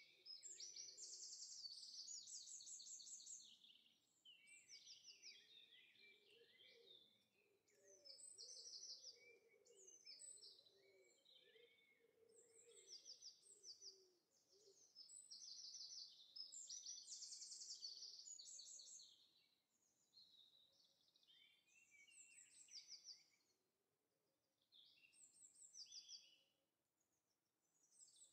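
Faint birdsong ambience: several birds chirping and trilling in quick, high, repeated phrases that come and go, with softer lower calls in the first half.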